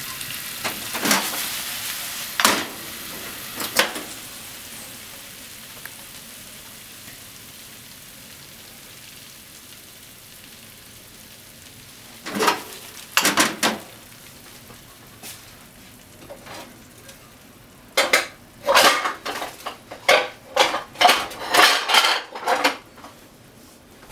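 Chicken and potatoes frying in a creamy sauce in a frying pan, with a faint steady sizzle that slowly fades. A utensil stirs and scrapes against the pan in short bursts: three strokes in the first few seconds, a pair about halfway, and a quick run of strokes near the end.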